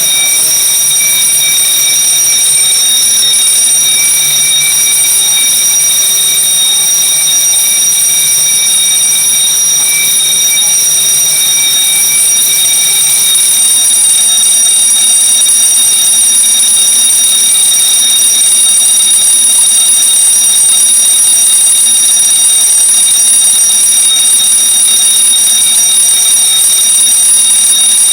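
Fire alarm of an FM-200 gas suppression system sounding a loud, steady, high-pitched continuous tone.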